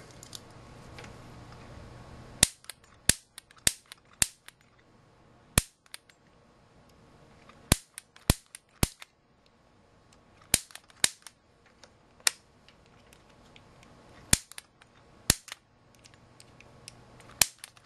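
Piezo gas grill starter snapping again and again as its spark discharges into a multimeter's input leads: about fifteen sharp clicks at irregular spacing, some in quick pairs.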